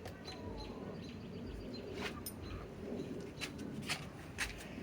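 Birds chirping faintly in short high calls, with a few sharp clicks, the loudest near the end.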